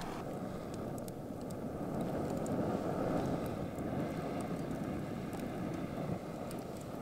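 A steady low rush of air through a campfire, with light crackling of burning wood. The rush swells in the middle.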